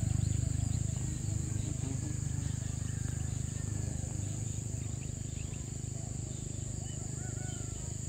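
Steady high-pitched insect chorus, like crickets, over a louder low fluttering rumble, with scattered short chirps.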